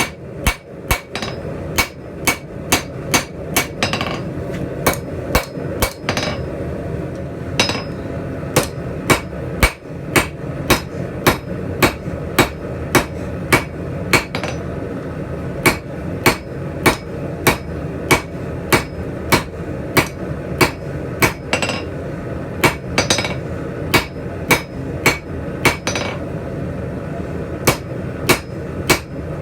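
Hand hammer blows on hot steel tong blanks on an anvil, drawing out the reins: regular strikes about two a second, with a few short pauses. A steady low noise runs underneath.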